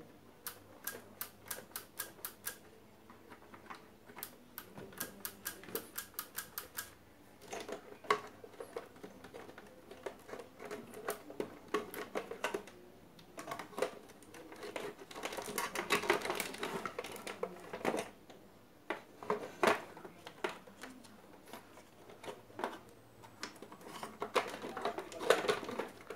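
Hard parts being handled during a blender repair: two runs of quick, even clicks, about five or six a second, in the first seven seconds, then irregular clicks, taps and scraping rattles, busiest in the middle and near the end.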